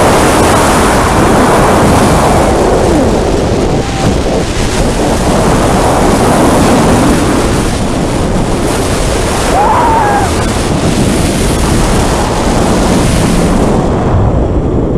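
Loud, steady rush of wind buffeting the microphone on the front seat of the Millennium Force steel roller coaster as the train speeds through the course, with a brief voice-like cry about ten seconds in.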